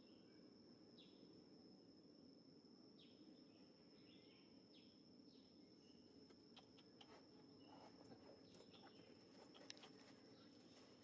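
Near silence: faint outdoor ambience with a steady high-pitched whine and short faint chirps every second or two, plus a few faint ticks in the second half.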